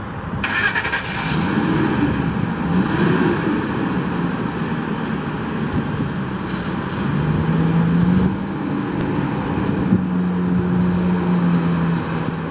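2004 Ford F-250 Super Duty's 5.4-litre Triton V8 running as the pickup drives at low speed, its pitch rising a few times as it accelerates and then holding steady.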